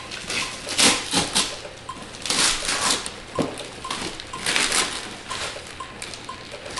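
Wrapping paper being torn and crinkled off a gift box, in several short rushes.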